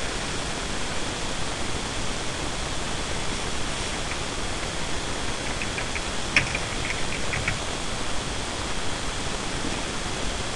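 Steady hiss throughout, with a short run of computer keyboard keystrokes about six seconds in.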